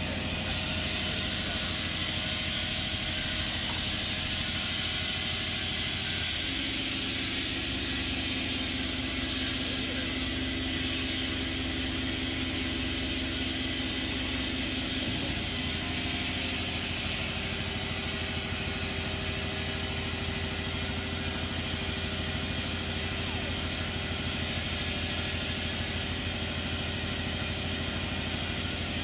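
An engine idling steadily, with a hiss over roughly the first half and a second steady hum that comes in about six seconds in and stops about fifteen seconds in.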